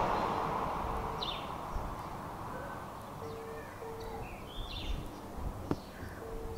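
Birds chirping outdoors, with short high calls and sweeps scattered through, and a low two-note hoot repeating about every three seconds over a faint low rumble. A single sharp click sounds near the end.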